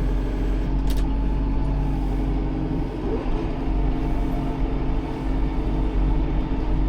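Tractor engine running steadily, heard from inside the cab, with a short click about a second in.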